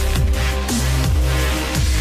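Electronic background music with a heavy bass line and a deep kick drum about twice a second.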